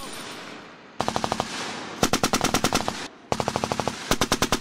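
M240 7.62 mm belt-fed machine gun firing four bursts, at roughly ten rounds a second. The second burst is the longest, about a second, and the shots ring on between bursts.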